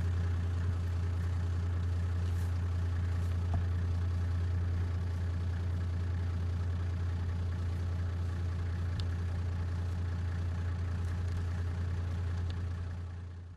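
Vehicle engine idling steadily with a low drone, fading out near the end.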